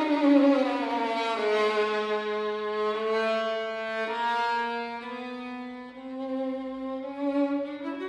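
Solo violin, bowed: a sliding descent into long, held low notes at the bottom of its range, stepping up a little about halfway and rising again near the end.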